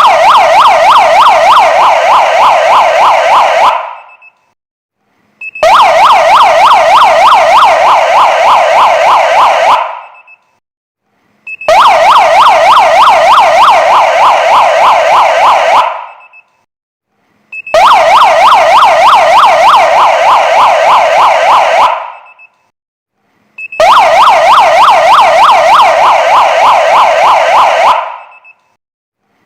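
Kingvox SPMX electronic siren switched on and off repeatedly: five loud bursts of a rapid rising-and-falling yelp, each about four seconds long and cut off, with a short high beep as each burst starts.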